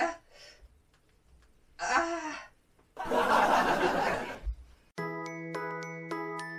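A woman laughing in short bursts, with a loud, breathy outburst in the middle. About five seconds in, a light chiming tune with evenly paced notes begins.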